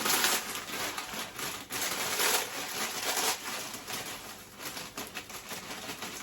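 Pot of water at the boil, hissing and bubbling in irregular surges as dried egg noodles are added.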